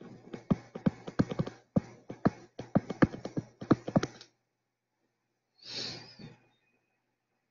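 A stylus tapping and scratching on a tablet screen while writing out a few words by hand: a quick, uneven run of sharp clicks that stops about four seconds in. A short breath follows a little later.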